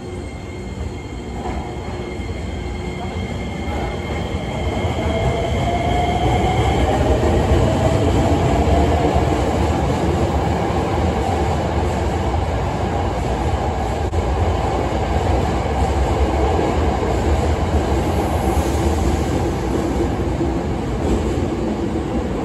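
Hankyu Kyo-train Garaku electric train pulling out of the platform. A motor whine rises in pitch over the first several seconds as the train accelerates, and the rumble of the running cars swells and stays loud as they pass.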